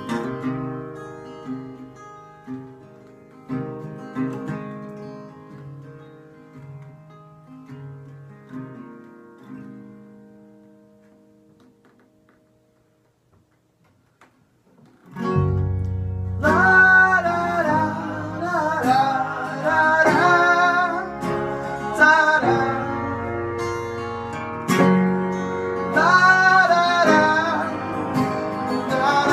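Live band playing guitars: soft plucked guitar notes die away to near silence, then about halfway through the band comes back in loudly with strummed guitars and singing.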